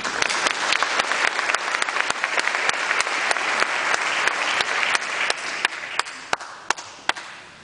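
Audience applauding, dense clapping that thins out after about five seconds to a few last scattered claps and dies away near the end.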